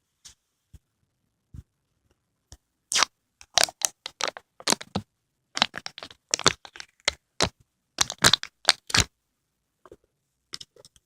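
Plastic packaging of a grape konjac jelly crackling and crinkling in irregular clusters of sharp clicks as it is opened, with a few isolated ticks first.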